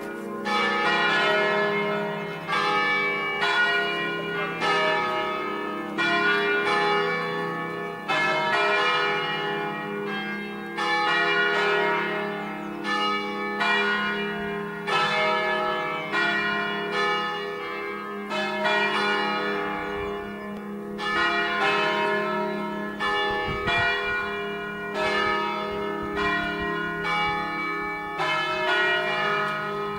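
Five-bell church peal in E-flat major, rung by bell ringers in the traditional scale sequences of a festive 'concerto'. The bells sound one after another, a fresh strike about every second, over a continuous ringing hum.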